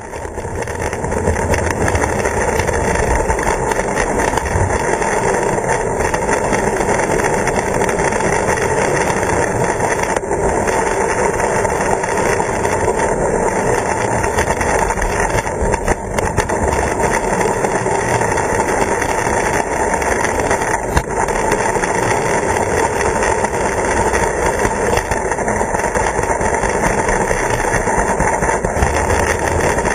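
A 16mm-scale model train running along garden-railway track, a steady, unbroken rumble of wheels on rails and drive gear picked up close by a camera riding on the train.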